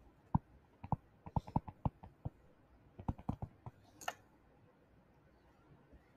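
Faint, irregular clicks and taps of a stylus pen on a tablet screen during handwriting, thick for about three and a half seconds and then stopping, with a short soft hiss about four seconds in.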